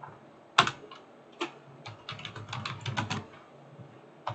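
Typing on a computer keyboard: a couple of separate keystrokes, then a quick run of keys about two seconds in, and one more near the end.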